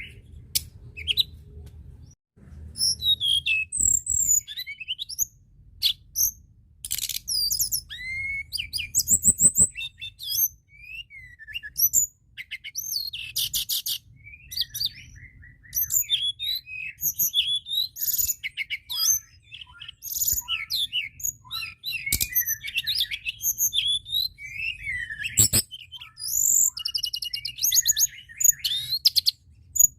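Tledekan gunung (Sunda robin) singing vigorously in a long, varied run of high chirps, clear whistled notes and fast trills, with barely a pause.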